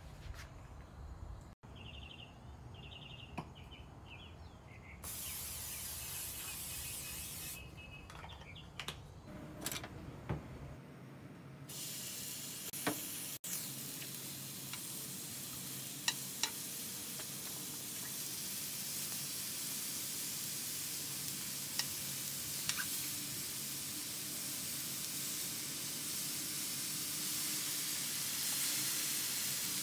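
Thin-sliced beef brisket frying on a hot griddle pan: a sizzling hiss starts about five seconds in, drops away for a few seconds, then runs steady and gets a little louder toward the end. A few sharp clicks of wooden tongs against the pan come through it.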